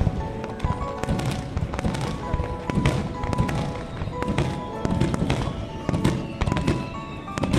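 Fireworks bursting in an aerial display: repeated deep booms and sharp cracks, over music that plays throughout.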